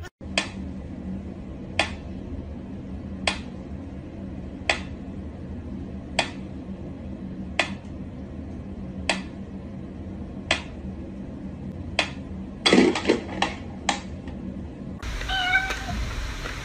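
Mechanical pyramid metronome ticking slowly and evenly, about one tick every second and a half. Near the end the ticking gives way to a few quicker clicks and a short cat meow.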